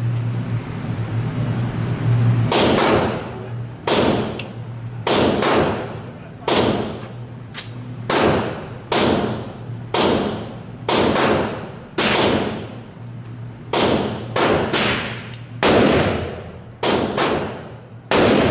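Gunshots echoing through an indoor shooting range: about twenty shots at irregular spacing, half a second to a second and a half apart, each ringing out in the hall. They begin about two and a half seconds in, after a steady low ventilation-like hum.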